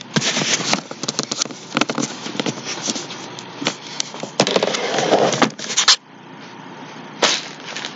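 Rubbing, knocking and rattling from a camera being handled and set in place, dense for about six seconds, then dropping to a low background with one more knock near the end.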